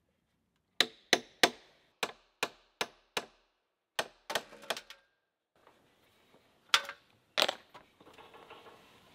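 Hammer blows on a wooden post: a run of sharp strikes, a short cluster, then a pause and two heavier blows near the end.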